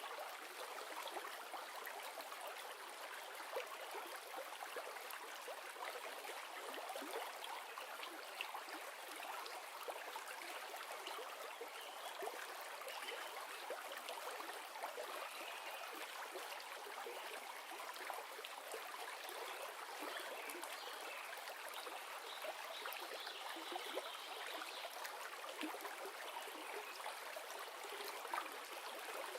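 River water running: a steady rush of flowing water with small splashes and trickles.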